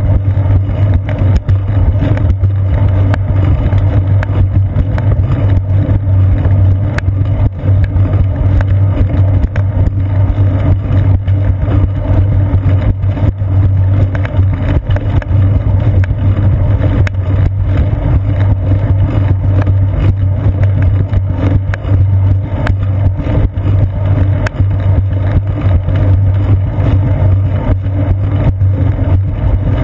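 Steady, loud, low rumble of a bicycle riding along a concrete path, picked up through the seat post by a GoPro camera in its housing.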